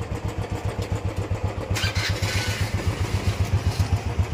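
A 2014 Royal Enfield Standard 350's single-cylinder engine idles with a steady, even thump through its stock exhaust, with little mechanical noise. A short hissing noise comes briefly about two seconds in.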